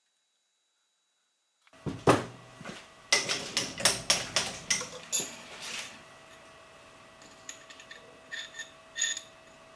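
Metal tools and parts being handled at a stopped lathe: a run of sharp clinks and knocks starting about two seconds in, loudest over the next few seconds, then lighter clicks as a slitting saw blade is tried on the steel arbor.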